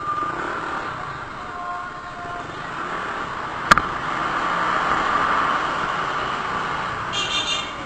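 Road traffic and motorcycle noise heard while riding through city streets: a steady rumble that swells in the middle. A single sharp click comes about halfway through, and a brief high-pitched sound near the end.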